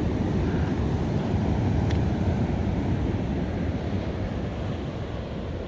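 Ocean surf washing over a rocky shore, with wind rumbling on the microphone. The noise swells a little about a second or two in.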